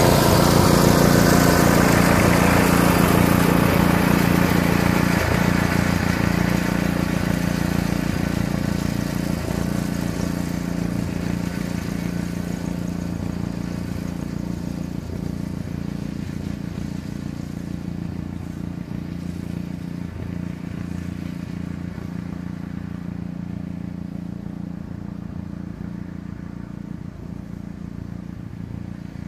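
Steady engine drone from a pickup truck towing a running pull-behind mower through tall grass, fading steadily as it moves away.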